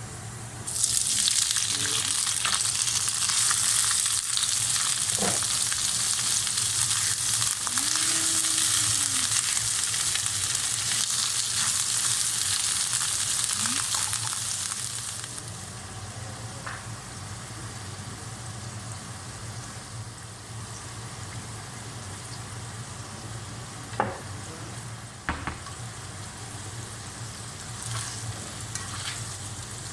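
Food sizzling loudly in hot oil in a frying pan, starting suddenly about a second in as ingredients go into the pan and being stirred; the sizzle dies down to a quieter hiss about halfway through, with a few sharp knocks of the utensil against the pan near the end.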